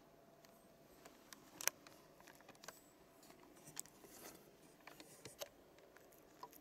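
Faint scattered clicks and light rustles, the sharpest about two seconds in. It is handling noise from a handheld camcorder as it is moved close to the cat and back.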